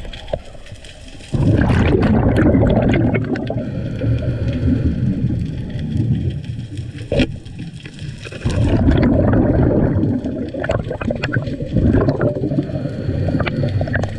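Underwater sound picked up by a diver's camera: rough rushing and bubbling of water moving around the housing, which surges twice and eases between, with scattered sharp clicks.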